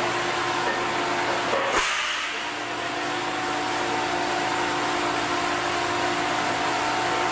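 Factory machinery running with a steady whirring hiss and a few held tones; the sound changes briefly about two seconds in, then carries on steadily.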